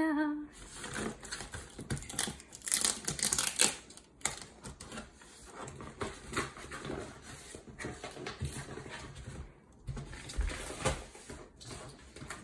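Irregular rustling and crackling of packaging being handled as a box is unpacked, thickest about two to four seconds in.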